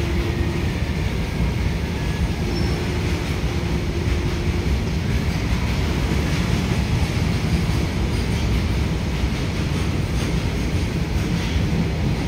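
A loaded goods train of tarpaulin-covered open wagons rolling past steadily, with a continuous rumble and clatter of wheels on rails. Faint brief wheel squeals come in the first few seconds.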